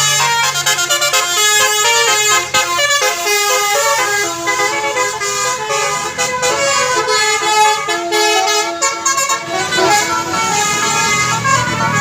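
A bus's Basuri 'telolet' multi-tone air horn playing a fast melody of short stepping notes. A low engine rumble rises near the end.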